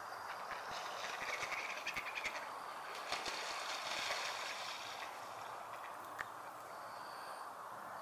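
Steady outdoor background hiss of wind and water, with a scatter of faint clicks and ticks between about one and four and a half seconds in, and a faint high thin call near the end.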